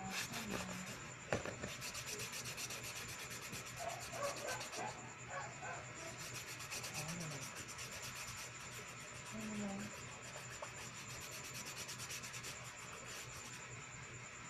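Sheet of paper being scratched and rubbed close to the microphone: fast, continuous scratching strokes that stop near the end.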